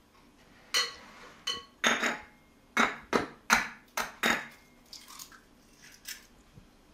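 An egg knocked against the rim of a small ceramic bowl to crack it: a series of about eight sharp clinks and knocks over four seconds, some with a brief ring, followed by fainter ticks as the shell is pulled open.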